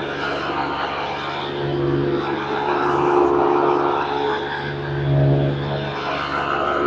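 Green Hoover Convertible U4377 upright vacuum cleaner running, a steady motor whine over a wide rushing noise that swells and dips slightly, loudest about three and five seconds in. Its beater bar sits loose in a cracked base plate, which makes the machine rattle and shake as it runs.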